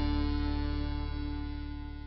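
Background music: a held chord ringing on and slowly fading out.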